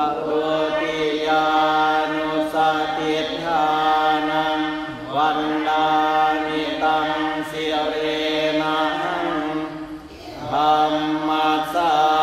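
Thai Buddhist monks and laypeople chanting Pali verses in unison on a near-steady recitation pitch, part of the evening chanting service. There is a brief pause for breath about ten seconds in before the chant resumes.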